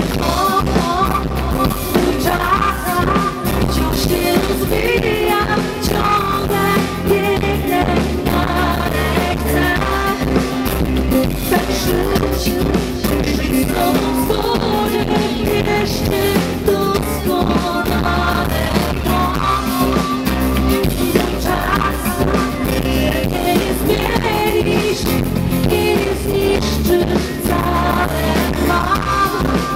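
A live band plays a pop-rock song through a PA, with a drum kit, electric bass and acoustic guitar keeping a steady beat, and a woman singing over it into a microphone.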